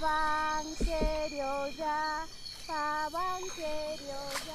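A high-pitched voice singing a short tune of brief notes, mostly held on one pitch with small slides up and down between them.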